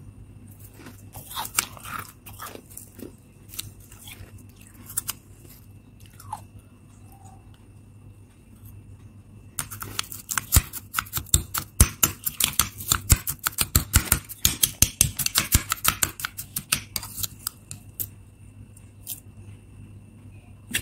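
Powdery freezer frost crunched and chewed in the mouth: a few scattered crunches at first, then about seven seconds of loud, rapid crunching starting around ten seconds in. A faint steady hum and a thin high whine run underneath.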